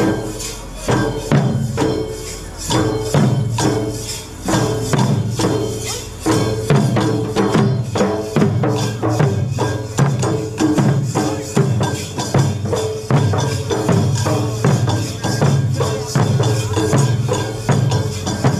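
Folk barrel drums (dollu) beaten hard in a steady driving rhythm, about three strong strokes every two seconds, each with a short ringing boom.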